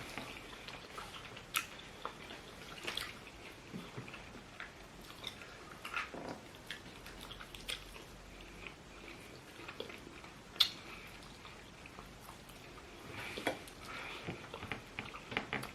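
Quiet eating sounds: chewing and mouth smacks with scattered sharp clicks, the loudest about ten and a half seconds in and a busier run near the end.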